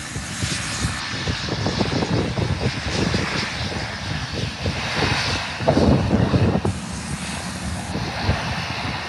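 Beechcraft King Air twin turboprop running at power as it rolls along the runway, a steady broad propeller-and-turbine hiss. Wind gusts rumble on the microphone over it, most strongly about six seconds in.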